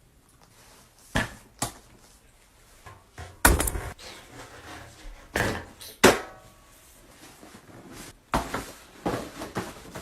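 A string of irregular thumps and bangs, loudest about three and a half seconds in, from things being shoved and forced into an over-full suitcase.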